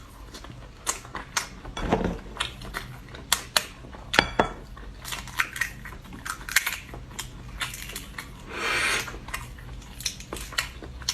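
Close-up eating sounds: chewing with many sharp, irregular clicks, a low sound about two seconds in and a longer noisy sound near nine seconds.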